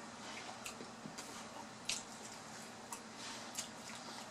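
Faint wet chewing and lip-smacking of someone eating grilled chicken, with a few short, sharp clicks spread through.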